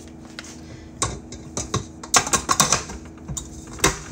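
Irregular run of sharp clicks and knocks as a stand mixer's stainless steel bowl and tilting head are handled and set in place, densest in the middle, over a faint steady hum.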